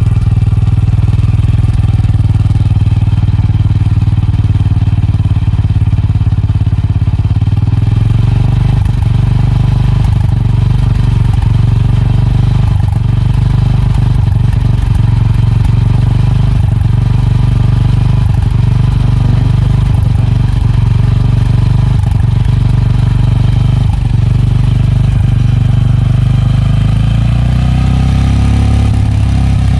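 Motorcycle engine idling steadily, heard close to the exhaust muffler, where the meter reads about 90 dB. Near the end the revs begin to rise.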